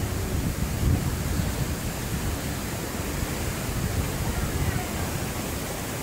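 The Banias waterfall, about ten metres high, pouring into its plunge pool: a steady, dense rush of falling water.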